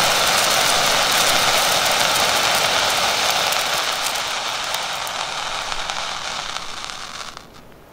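Red pyrotechnic distress hand flare, two years past its expiry date, burning with a steady hiss. The hiss fades over the last few seconds and cuts off about seven seconds in as the flare burns out.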